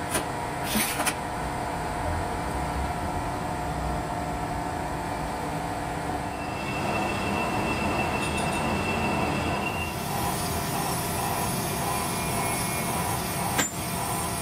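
Heavy industrial machinery running in a crankshaft production line: a steady metallic mechanical noise, with a thin high whine from about six to ten seconds in and a few sharp metallic clicks near the start and near the end.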